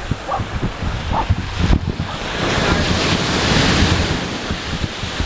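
Small waves breaking and washing up a sand beach, with wind buffeting the microphone; a wave washes in loudest around three to four seconds in.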